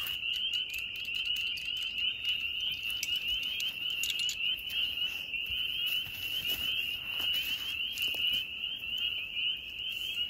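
Chorus of spring peepers: many overlapping short, high rising peeps in a steady unbroken din.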